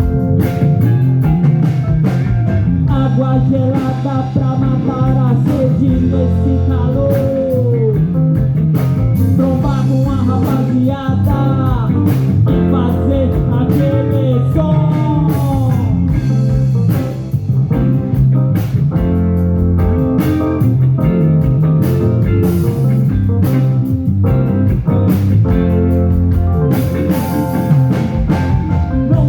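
A live band plays instrumental rock with a blues feel: an electric guitar plays a lead line with string bends over bass guitar and a drum kit.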